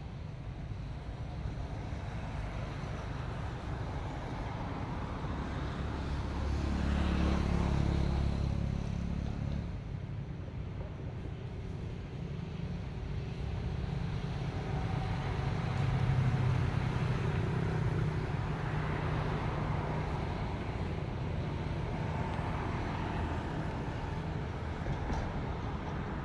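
Motor vehicles passing: a steady low engine rumble that swells and fades twice, about a third of the way in and again past the middle.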